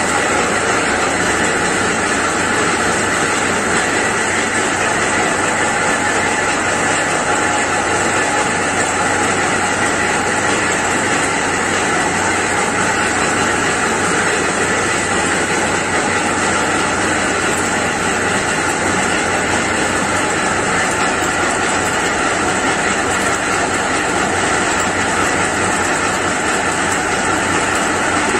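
Belt-driven mustard seed oil expeller (screw press) and its electric motor running steadily under load as seed is crushed: a loud, even machine noise that does not change.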